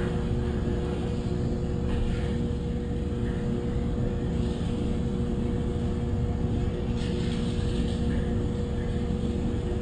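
A steady mechanical hum with a few constant tones over a low rumble, and faint hissy sounds about two, five and seven seconds in.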